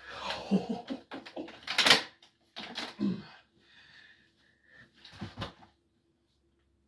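Clatter and knocks of a black plastic crate being lifted, tipped and stood upright on a mattress, the loudest knock about two seconds in, with a man's heavy breathing between.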